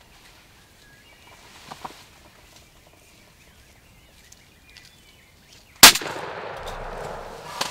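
A single shotgun blast at a turkey about six seconds in, followed by a rustling flurry as the startled turkeys flap their wings.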